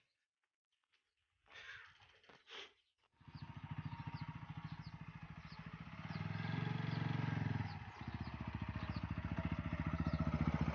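Motorcycle engine running at a steady idle, an even rapid putter that starts about three seconds in, swells briefly in the middle and cuts off near the end.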